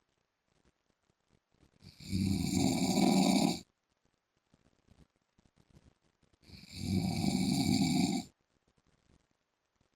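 A man snoring loudly and regularly. Two long snores are heard, one starting about two seconds in and the next about four and a half seconds later, each lasting under two seconds, with quiet between them.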